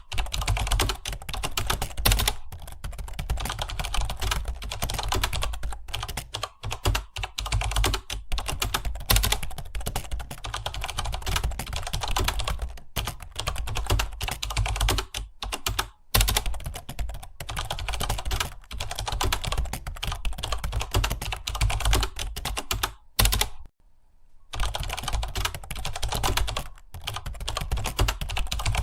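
Fast, continuous typing on a computer keyboard, a dense stream of key clicks broken by a few short pauses, the longest about a second near the end.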